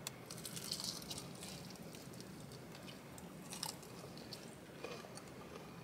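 Faint chewing of crispy fried chicken, with a few scattered soft crunches of the breading.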